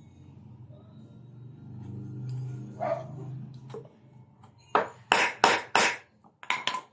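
A steel hammer drives a nail into pine (palochina) wood, with four hard strikes about a third of a second apart and then three quicker, lighter taps near the end. A low hum runs under the first few seconds before the hammering.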